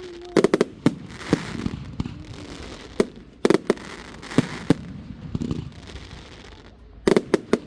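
Fireworks display: aerial shells bursting in clusters of sharp bangs, several in quick succession, with short pauses between the clusters.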